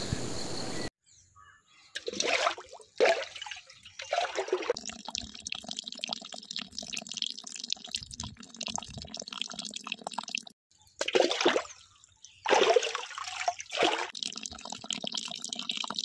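Water pouring and splashing in several loud surges, with a steadier trickle between them.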